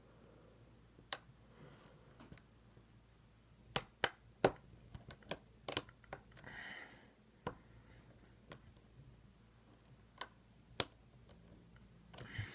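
Small sharp metallic clicks, a dozen or so at irregular intervals, of lock picks and a tension tool working the pins of an ASSA 700 lock. A louder clatter of metal begins just before the end.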